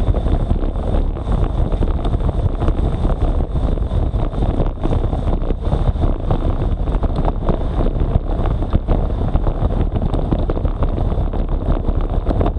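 Wind buffeting an action camera's microphone as a road bike rides at about 40–50 km/h. It is a loud, steady, fluttering rumble.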